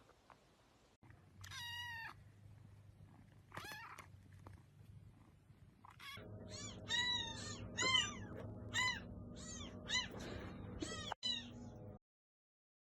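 Cat meowing: two single meows, then from about six seconds in a quick run of short, high meows, about two a second, over a steady low hum. The sound cuts off suddenly about a second before the end.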